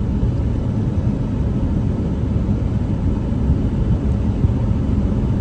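Steady low rumble of a moving car heard from inside the cabin: engine and tyre noise on the road, even throughout with no distinct events.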